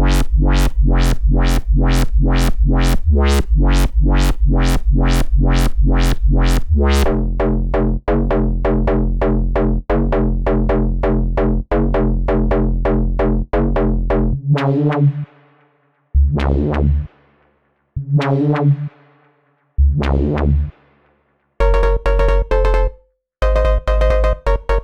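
Electronic music: a UK garage-style preview of Serum 2 synth presets, with a rapid, steady run of bass-heavy synth notes for about the first half, then a sparser phrase of separate notes with gaps between them, and a quicker figure returning near the end.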